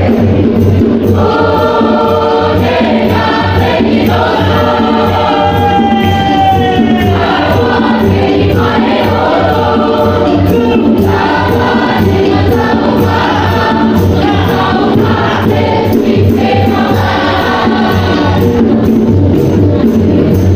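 Mixed choir of men and women singing, with long held notes, over a steady low beat.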